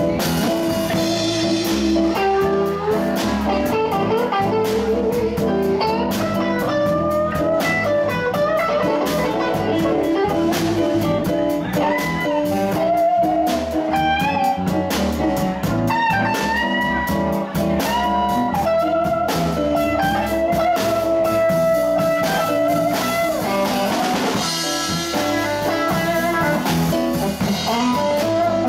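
Live blues band playing an instrumental passage on electric guitar, electric bass, drum kit and keyboard. An electric guitar lead plays bent, wavering notes over the rhythm.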